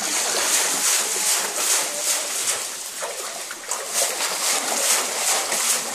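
Shallow water splashing and sloshing as a wicker basket of netted fish is dipped and rinsed and the fish are sorted by hand: a continuous run of small, irregular splashes.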